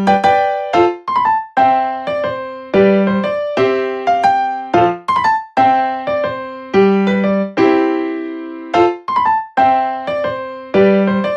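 Background music: a keyboard melody of single struck notes, each fading after it is played, a few notes a second.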